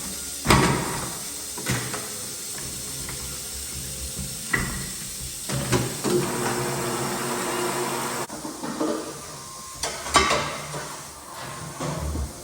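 Several sharp metal clanks and knocks, about five, spread unevenly, from hand tools and wheel parts during truck tire removal, over a steady hum.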